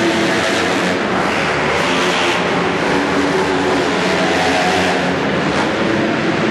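Several flat-track racing motorcycle engines running hard in a pack, their pitch rising and falling as the riders work the throttle.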